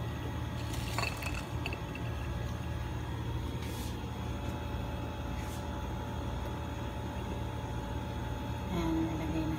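Steady low background hum with a few faint clicks and light taps.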